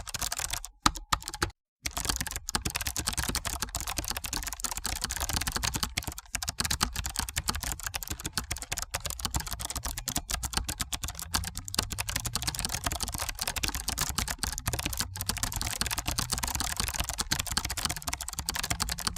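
Fast typing on a computer keyboard: a dense, uneven stream of key clicks, with a brief pause about a second in.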